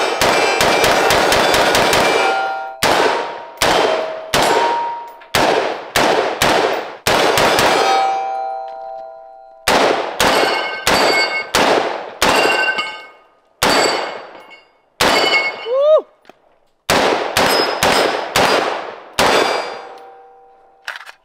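5.56 semi-automatic AR-style rifle (Daniel Defense DD4 RIII) firing: a rapid string of about a dozen shots at the start, then slower single shots about half a second to a second apart. Many shots are followed by the ringing of struck steel targets.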